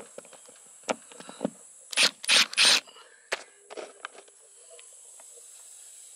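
A hand screwdriver scrapes and clicks as it backs a Phillips screw out of an RV slide-topper bracket. Three louder scraping bursts come close together about two seconds in, with scattered small clicks before and after.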